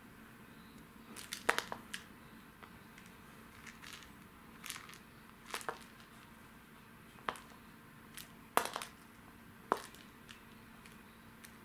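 A cat batting at a string teaser and toy mouse on a wooden floor: about ten irregular sharp taps and scratches of paws, claws and the toy striking the floor, over a faint steady hum.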